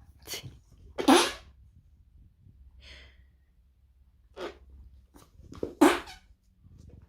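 French bulldog sneezing, four short sharp bursts: two about a second apart near the start, then two more near the end. The second and last are the loudest.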